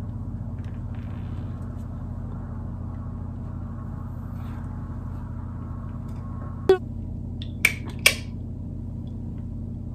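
Steady low electrical hum of room tone, with three short clicks about seven and eight seconds in.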